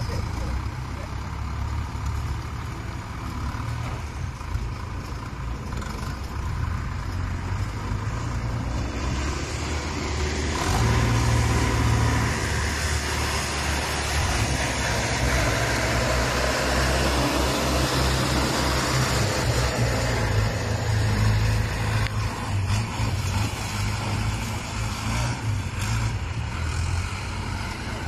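Compact wheel loader's diesel engine running steadily as it digs into a dirt pile and raises its bucket, growing louder about ten seconds in and staying loud.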